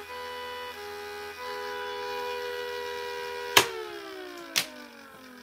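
3D-printed mini Thunderbolt-style siren, its chopper spun by a small electric motor, sounding a steady chord of several tones. A little over three seconds in there is a sharp click as the power is cut, and the whole chord glides down in pitch as the rotor winds down, with a second click a second later.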